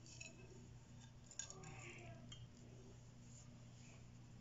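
Near silence with a steady low hum, and a faint clink of a plate being moved about a second and a half in.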